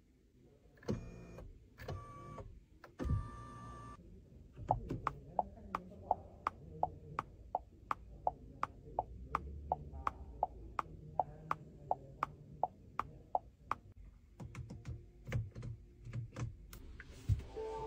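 AVATR 12 cabin electronics: a few short electronic chimes, then a low motor hum with an even ticking about two to three times a second for roughly nine seconds, likely the electric steering column adjusting. Another short chime comes near the end.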